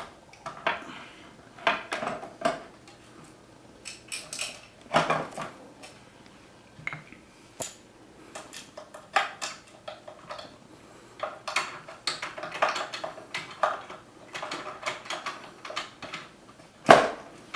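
Parts of a DLP television's color wheel assembly being handled and set back in place: scattered clicks, taps and short rattles of small hard parts, with one sharp knock near the end.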